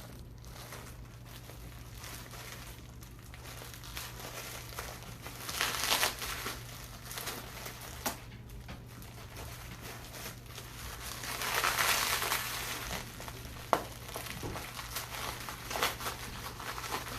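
Bubble wrap and plastic packaging crinkled and pulled at by hand, with louder rustling about six seconds in and again around twelve seconds.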